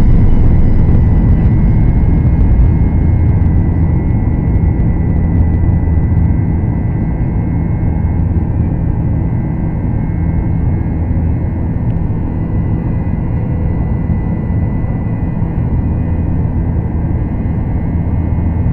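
Boeing 737-800 cabin noise during climb-out after takeoff: the CFM56 engines' loud, steady rumble with a faint steady high whine, slowly getting quieter.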